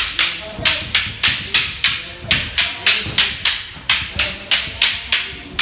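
Wooden fighting staffs clacking against each other in a steady partner drill: sharp knocks at about three to four a second, evenly paced.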